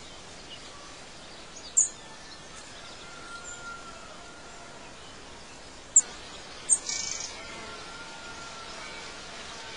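Outdoor ambience: a steady background hiss with short, high bird chirps, one about two seconds in and two more around six to seven seconds.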